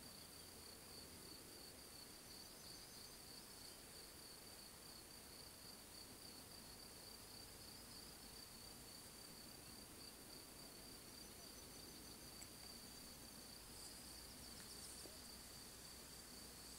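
Faint, steady, high-pitched chirring of crickets, unbroken throughout, with a few short, higher chirps near the end.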